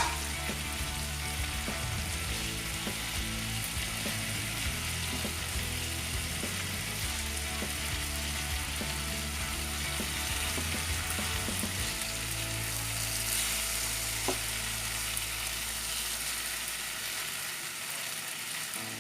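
Marinated chicken drumsticks frying in a pan, a steady sizzle.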